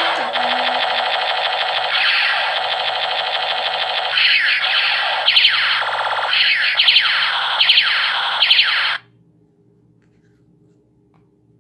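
Battery-powered plastic toy ray gun playing its electronic sound effect: a loud warbling electronic tone, turning into a run of repeated sweeping zaps about four seconds in, that cuts off suddenly about nine seconds in.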